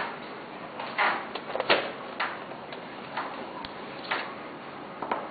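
Screwdriver driving the small screws back into the metal bottom cover of a DVD-ROM drive: scattered light clicks and scrapes of metal on metal, about seven over a few seconds.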